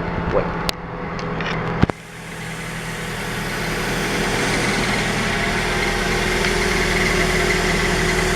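2009 Scion xD's engine idling, with two sharp clicks in the first two seconds; then the running noise grows gradually louder and brighter, with a faint steady high tone.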